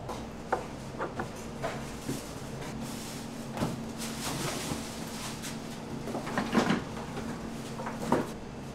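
Restaurant background: scattered light knocks and clinks of dishes and utensils, loudest in a short cluster about two-thirds of the way through, over a steady low hum.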